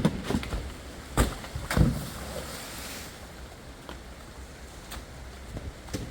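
Wind buffeting the microphone as a steady low rumble, with two sharp thumps about a second in and a short hiss soon after.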